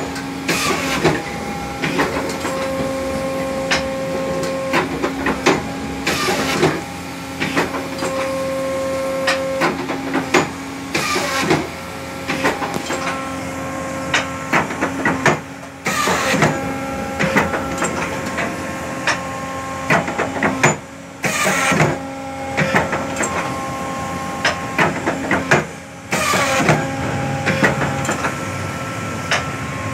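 Schneider Senator programmable paper guillotine working through a cutting programme: a steady motor hum with short tones that start and stop, many clicks and clunks, and a louder rush of noise about every five seconds as the machine steps through its cuts.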